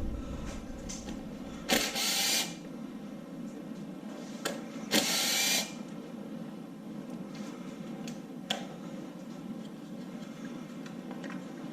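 Impact driver running in two short bursts, about three seconds apart, as it spins bolts out of an LS engine, with a few light clicks of metal parts and tools being handled in between.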